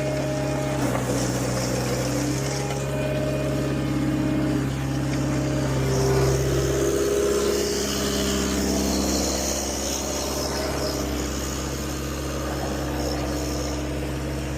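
Engine of heavy road-construction machinery running steadily at a constant pitch, with a higher hiss swelling and fading in the middle.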